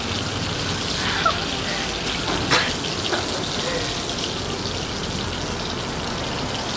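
Steak frying in butter in a nonstick pan: a steady sizzle with fine crackling, and a couple of sharper ticks in the first half.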